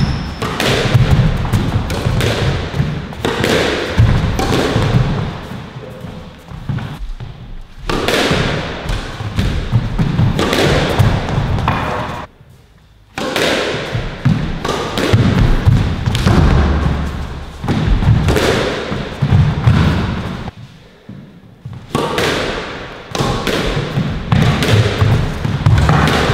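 Squash rally: the ball cracking off rackets and thudding against the court walls, over the players' footsteps on the wooden floor, in quick irregular strikes. The play drops away twice for a moment.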